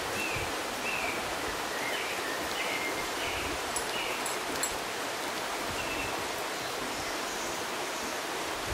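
Steady rush of a flowing river, with a bird singing a string of short, high notes over the first four seconds and once more about six seconds in.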